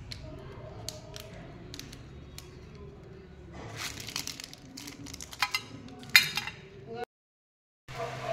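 Wrapped chocolate bars handled over a stainless steel plate: plastic wrappers crinkling, with light clicks and taps. Sparse clicks in the first few seconds, then denser crinkling with a few sharp peaks; the sound cuts out abruptly near the end.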